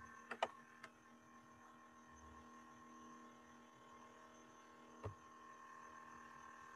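Faint steady electrical hum with a few computer mouse clicks: a quick pair and a lighter single click in the first second, and one more click about five seconds in.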